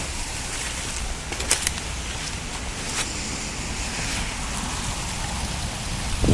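Steady hiss of falling rain, with a few sharp ticks of drops striking nearby surfaces, about a second and a half in and again at three seconds.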